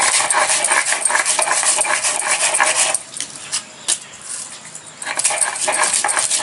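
Whole garam masala spices being crushed and ground on a sil-batta, the stone muller rasping and crackling over the seeds with many small clicks. It pauses about three seconds in, with a single knock near four seconds, and starts again about five seconds in.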